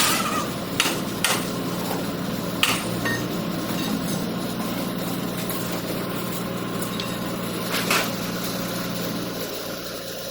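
An engine running steadily with a low hum, with about five sharp knocks: three within the first second and a half, one just under three seconds in and one about eight seconds in.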